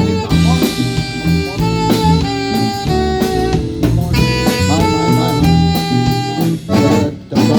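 Live band playing an instrumental passage: held melody notes over a bass line and drum hits.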